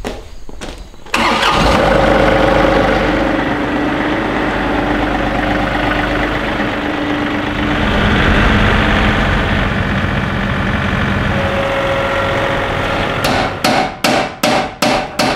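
John Deere compact tractor's diesel engine starting up, then running steadily, its pitch shifting slightly about halfway through. Near the end the sound breaks into a quick run of short, evenly spaced pulses.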